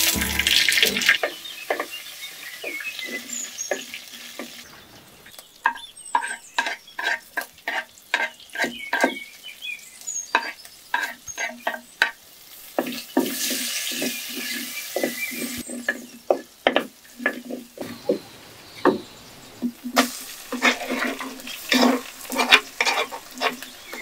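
Spices and curry leaves sizzling and crackling in hot oil in a clay pot, with a wooden spoon stirring and knocking against the pot in a quick run of sharp clicks. The hiss of frying swells twice, about halfway through and again near the end.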